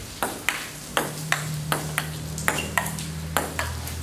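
Table tennis rally: the celluloid ball clicking sharply off the paddles and the table, about three hits a second in an even back-and-forth rhythm, over a steady low hum.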